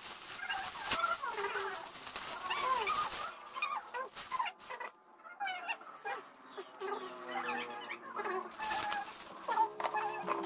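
Cellophane gift wrap crinkling and rustling as it is handled and pulled off a gift basket, in many quick crackles.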